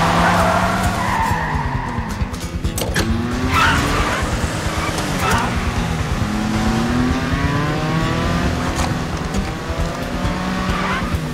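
Car engines revving up and down at high speed, with tyres squealing three times in short bursts, over film score music.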